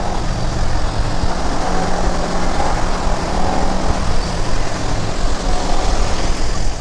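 Motorcycle engine running steadily while riding through traffic, mostly buried under the rush of wind on the microphone.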